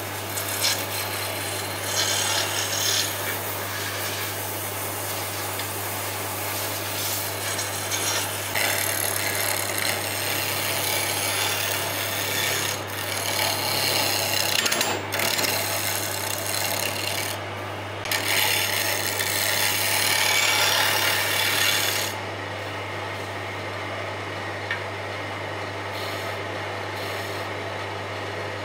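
Wood lathe turning a cylindrical wooden blank while a hand-held turning tool cuts into it, with a rasping scrape of shavings tearing off in several passes over a steady low motor hum. The cutting stops about three quarters of the way through, leaving the lathe running alone.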